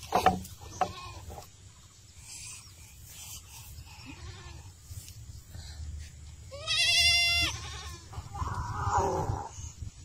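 A farm animal bleating once, a long wavering call past the middle. Two sharp knocks near the start.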